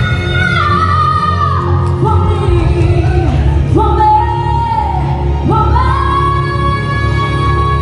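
A woman singing live into a microphone over music accompaniment, amplified through a PA in a large hall. About five and a half seconds in she slides up into a long held high note.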